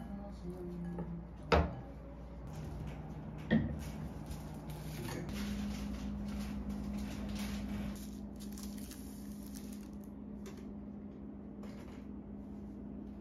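Food-preparation handling sounds: two sharp knocks in the first few seconds, then soft rustling and light clatter, over a steady low hum.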